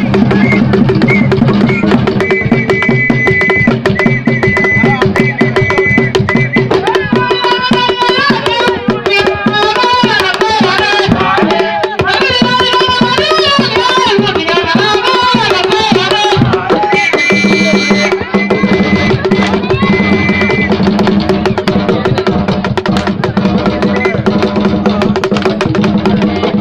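Traditional ngoma drumming in a steady, fast beat, with voices singing over it for several seconds in the middle and a held high note before and after the singing.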